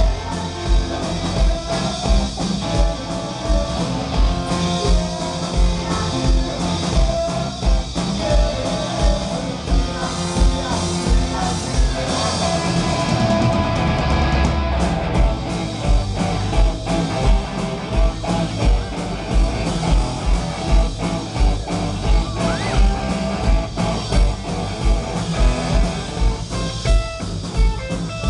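Rock band playing live: guitars and drums, with a steady kick-drum beat about twice a second.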